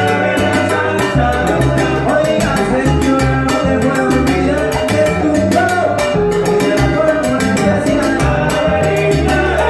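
Live salsa band playing: a stepping bass line, horns or voices holding notes over it, and busy Latin percussion.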